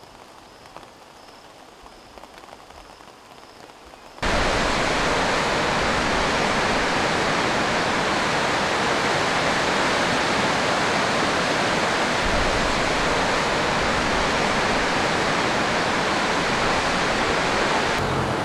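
Faint background for the first few seconds. Then, about four seconds in, the loud, steady rush of a muddy river in flood cuts in suddenly and carries on without letting up.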